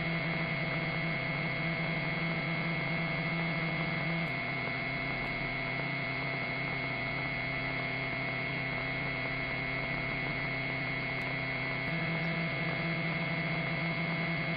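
Steady electronic hum and hiss of an aircraft radio and intercom audio channel with no one transmitting, holding several constant tones. Its low hum weakens about four seconds in and comes back near the end.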